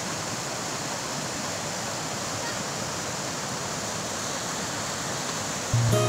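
Steady rush of a rocky mountain stream, water pouring over boulders. An acoustic guitar strum starts just before the end.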